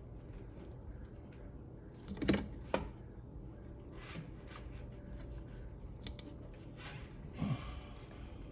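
Hand work on a turbo inlet in a car's engine bay: two sharp knocks a little over two seconds in, light clicks and scrapes of parts and tools, and a longer rustling scrape near the end.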